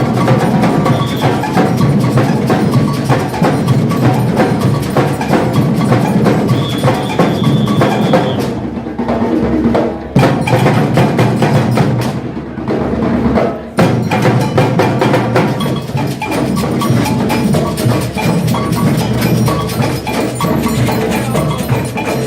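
Samba bloco drum ensemble playing live, a loud, dense groove of massed street drums. Twice in the middle the high drums drop out briefly and only the low drums carry on, before the whole section comes back in.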